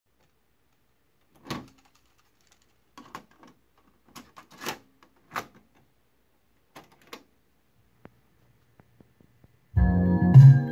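Clunks and clicks of a TEAC V-330 cassette deck's piano-key transport buttons being pressed, a handful over about six seconds. About ten seconds in, music starts playing back from the chrome cassette, much louder than the clicks.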